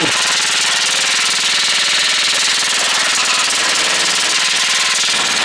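Airsoft electric rifle firing one continuous full-auto burst from a motorized 1200-round drum magazine, its feed motor running, with a dense rattle of BBs striking rusty steel barrels.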